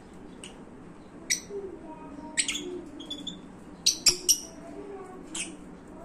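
Lutino peach-faced lovebirds giving short, sharp, high chirps, about six in all, with a quick run of three in the middle that are the loudest.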